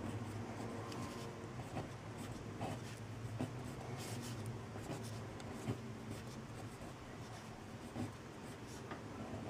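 A pen writing by hand on paper: quiet, short scratching strokes with small pauses between them, over a low steady hum.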